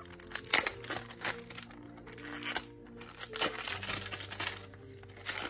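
Brown wrapping paper crinkling and rustling in irregular bursts as a boxed card deck is unwrapped and handled, over soft background music with sustained notes.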